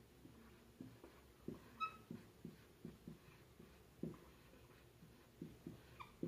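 Marker pen writing on a whiteboard: faint short strokes and taps, about two or three a second, with a brief high squeak about two seconds in.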